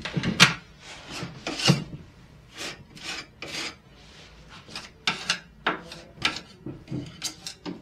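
Metal spackle knife scraping wood filler into holes on a wooden cabinet: a series of short, irregular scraping strokes, the loudest two in the first two seconds.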